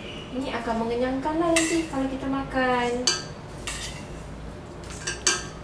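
A spoon clinking and scraping against a small ceramic bowl, with a few sharp clinks, over the steady hum of a stand mixer kneading bread dough.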